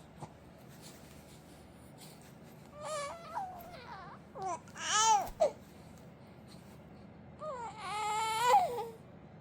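An infant's crying vocalisations: three high, gliding wails. The loudest comes about five seconds in, and the last is long and wavering.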